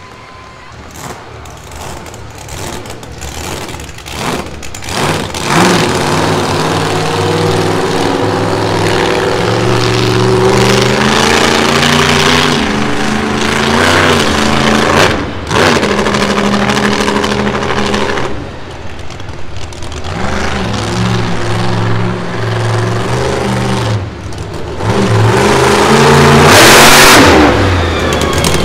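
Monster truck engine running hard, revving up and down repeatedly, building up over the first few seconds, with the loudest rush near the end.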